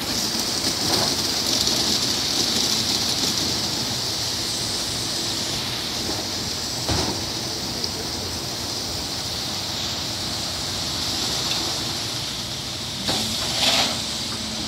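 Ryko SoftGloss Maxx rollover car wash at work: water spraying with a steady hiss while the spinning foam brushes swish against a car, over a faint steady hum. A brief knock about seven seconds in and a short louder swish near the end.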